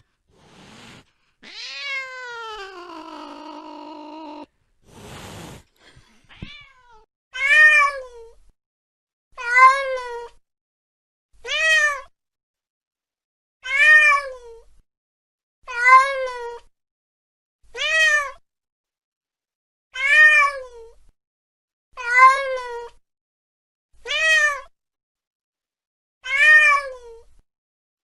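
A domestic cat meowing. First comes one long meow that falls in pitch, then a few short sounds. From about seven seconds in, the same short meow repeats evenly, about every two seconds, ten times.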